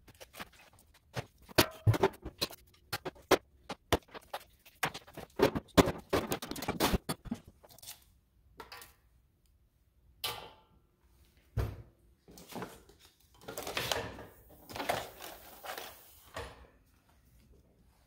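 Tools and parts clattering and knocking as they are picked up and set down on a wooden workbench while it is cleared, with a dense run of sharp knocks in the first several seconds and scattered thunks after. Rustling of plastic wrapping near the end.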